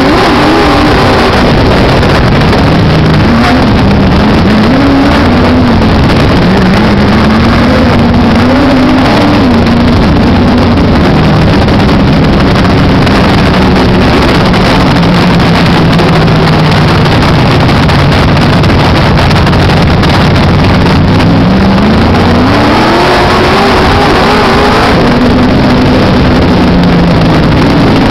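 Modified race car's V8 engine at racing speed, heard loud from on board the car. The engine note drops and climbs again lap after lap, with a long rising rev about 23 seconds in.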